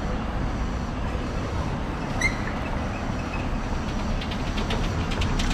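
City street traffic at an intersection: a steady low rumble of passing vehicles. A brief high chirp comes about two seconds in, and a run of rapid light ticks follows in the last second and a half.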